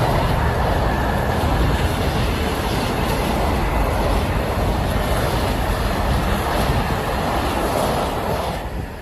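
Class 68 diesel-electric locomotive's Caterpillar V16 engine running loudly under power, with a low engine tone fading out in the first second. The sound drops away sharply near the end.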